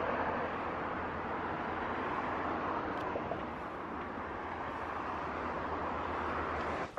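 Steady rush of distant road traffic, easing slightly towards the end.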